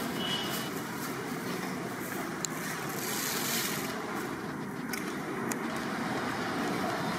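Steady background rumble and hiss, with a few faint clicks.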